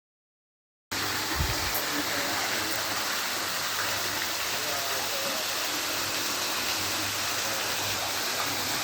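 Steady, even rushing noise that cuts in abruptly about a second in, after dead silence.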